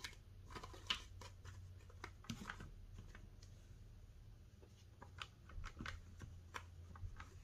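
Paper banknotes being handled and counted by hand: a scatter of faint, crisp rustles and flicks as bills are thumbed and laid down, over a low steady hum.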